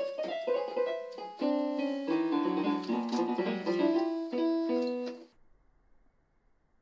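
Electronic keyboard sounding irregular clusters of piano notes as a small dog paws and stands on its keys. The notes cut off suddenly about five seconds in.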